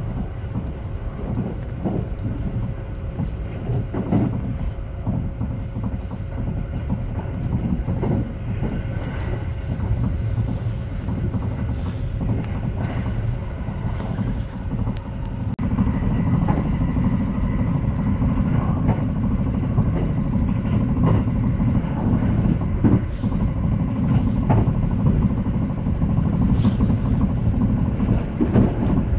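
Haruka airport express train running, heard from inside the carriage: a steady rumble of the wheels on the rails with scattered clicks and knocks. The rumble grows louder about halfway through.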